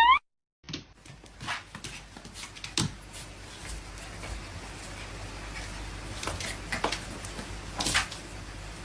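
Scattered light knocks and clicks over low room noise.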